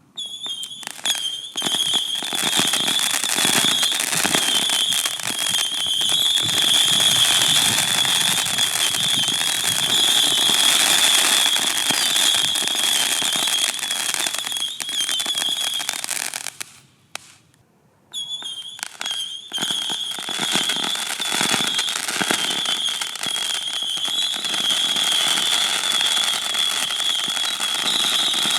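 Missile Mania 300-shot missile firework cake firing a rapid, continuous barrage of whistling, crackling missiles: a steady high whistle over dense pops. It stops for about a second and a half roughly two-thirds of the way through, then starts again.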